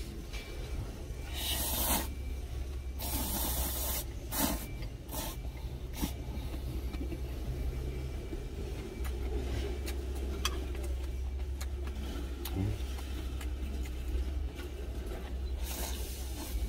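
Instant ramen noodles wrapped in kimchi being slurped and chewed, with noisy slurps a couple of seconds in and again near the end. Under it all runs a steady low hum, as from an idling vehicle engine in a cab.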